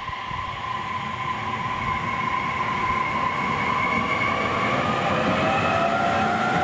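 Electric train on the Utsunomiya Line getting under way: its traction motors give a whine of several tones that rises in pitch as it gathers speed, over the rumble of wheels on rail, getting louder toward the end.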